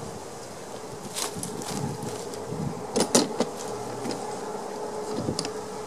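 A few sharp clicks of hand tools being handled: one about a second in, two close together around three seconds, and one past five seconds. A steady, high buzzing drone runs underneath.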